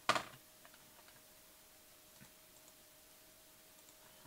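One sharp click just at the start, then faint scattered clicks over a steady faint hum, typical of a computer mouse and keyboard being used in a quiet room.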